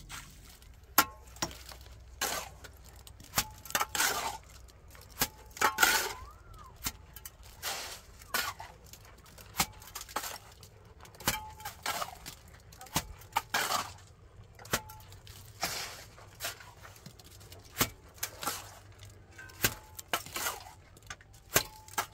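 Metal hand tools clinking and scraping on hard building material, sharp knocks and short scrapes at an uneven pace of roughly one a second.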